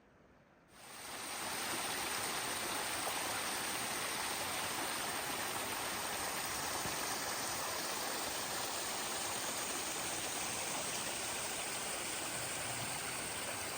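Mountain stream rushing over rocks: a steady, even rush of water that fades in about a second in.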